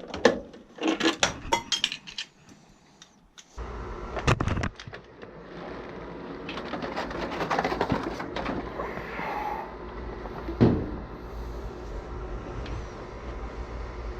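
Sharp clicks and clinks from handling hardware during a furnace repair. About three and a half seconds in, a steady low hum starts and carries on, with a few knocks and rattles over it.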